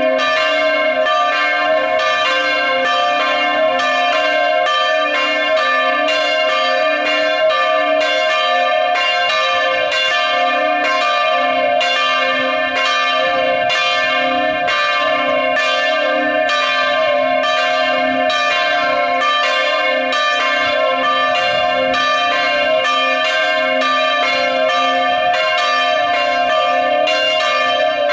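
Full peal (plenum) of the chapel's swinging church bells, all ringing together. Their strikes overlap in a steady, unbroken stream of several strikes a second.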